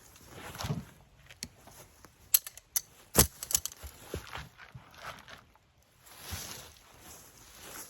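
Footsteps and rustling in brush and leaves with a few sharp knocks, the loudest about three seconds in.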